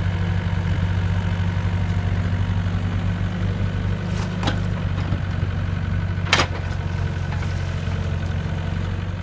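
An engine idling steadily, with a few short clicks about four and six seconds in.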